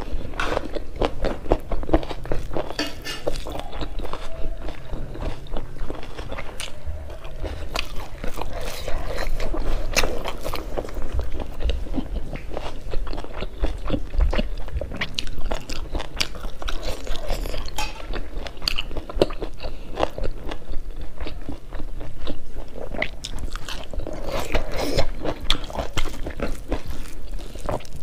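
A person chewing and smacking her lips while eating rice, smoked pork curry and boiled mustard greens with her fingers, with many short, sharp mouth clicks.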